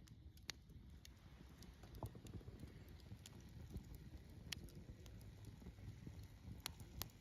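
Wood campfire crackling faintly: a handful of sharp, scattered pops over a low steady rumble.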